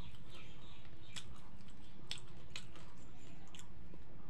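A person chewing chicken with the mouth, giving a few short wet clicks, over a steady low hum.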